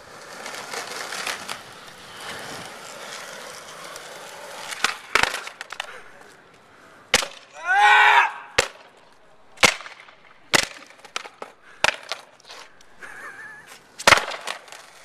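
Skateboard wheels rolling on pavement, then about seven sharp clacks of the wooden deck popping and landing on the concrete as flip tricks are tried. A short falling cry comes near the middle.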